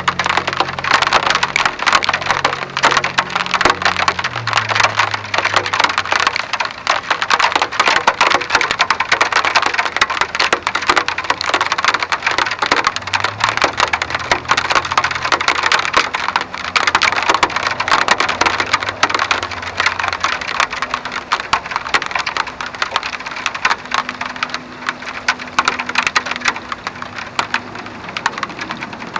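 Rain pattering densely on a surface, a steady crackle of countless drops. Faint low held notes sit underneath, shifting in pitch every few seconds.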